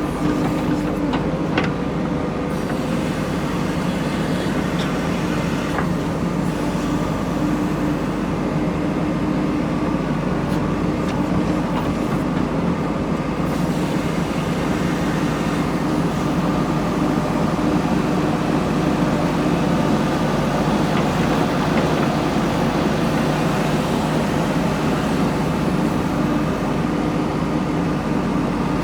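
JCB backhoe loader's diesel engine running steadily, with a constant hum, and a few light clicks in the first couple of seconds.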